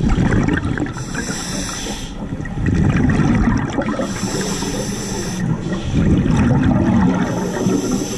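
Underwater breathing through a diving helmet: a high hiss of air on each inhalation, three times, alternating with a low rumble of exhaled bubbles. It repeats in a steady cycle about every three and a half seconds.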